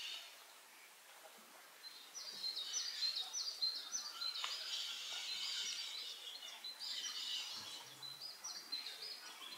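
Small birds chirping and twittering, a rapid run of short high calls that starts about two seconds in and goes on.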